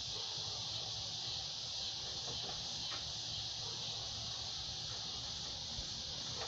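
A steady, high-pitched chorus of insects, a continuous shrill hiss with no breaks, over a faint low rumble and a few soft clicks.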